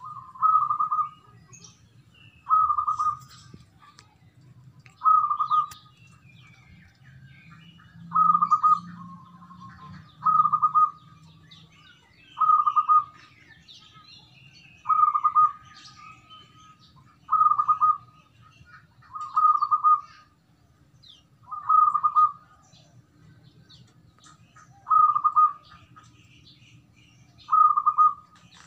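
Caged zebra dove (perkutut) cooing: a short coo phrase repeated steadily about every two and a half seconds, a dozen times.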